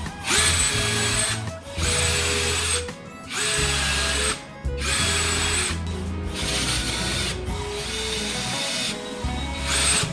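Electric power drill run in repeated short bursts, each about a second long with a brief pause between, the whine settling quickly at each start. Background music plays underneath.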